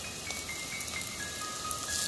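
Quiet background music with a few held high notes, over a faint sizzle of shallots frying in oil.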